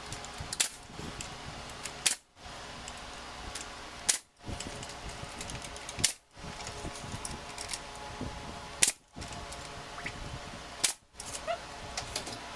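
Nail gun firing single shots, about six of them spaced roughly two seconds apart, driving nails to fasten a spacer bar in place.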